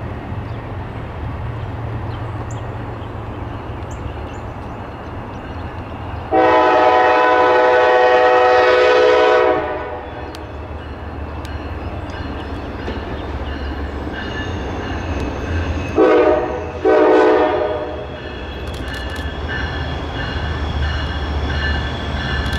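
Nathan five-chime air horn on a CSX GE freight locomotive. It sounds one long blast of about three seconds, then two short blasts some seven seconds later, over the steady low rumble of the approaching train.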